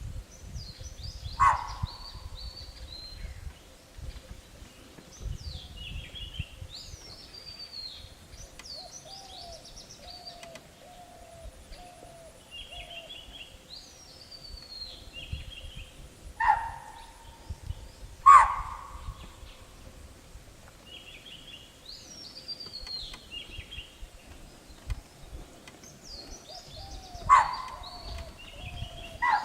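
Spotted deer (chital) giving sharp, loud alarm barks, single calls spaced irregularly: one about a second and a half in, two close together past the middle, two near the end. The alarm bark warns of a predator. Birds call repeatedly behind it with short falling whistled notes.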